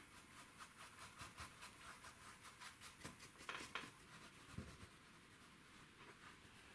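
Faint scratchy dabbing of a cat's tongue (filbert) brush on stretched canvas as acrylic paint is worked in, about three or four dabs a second, fading out about four seconds in.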